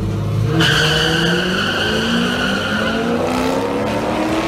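Two drag-racing cars, one a C5 Corvette, launching off the line side by side. A sudden high tire squeal starts about half a second in and lasts a couple of seconds, while the engines' pitch climbs steadily under full acceleration down the strip.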